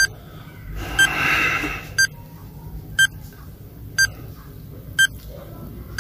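Quiz countdown timer beeping once a second: short, high electronic beeps counting down the 10-second answer time. A brief hiss comes about a second in.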